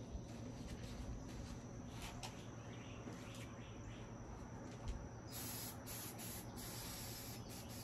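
Faint outdoor ambience of insects chirping steadily, with a few soft clicks of handling on the workbench. A brighter high hiss comes in about five seconds in and runs nearly to the end.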